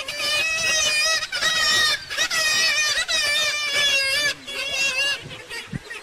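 Black-legged kittiwakes calling at their cliff colony: a run of loud, wavering calls with a few short breaks, trailing off about five seconds in.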